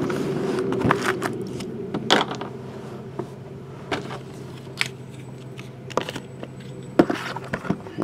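Cardboard hobby boxes being handled and set down on a table: scattered knocks, taps and clicks, a few sharper ones near the start, about two seconds in and near the end. A steady low hum runs underneath.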